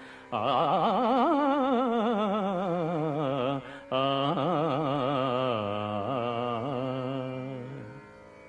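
A man singing a Sanskrit shloka in a slow devotional melody: two long drawn-out phrases of held notes with a wide vibrato, fading away near the end.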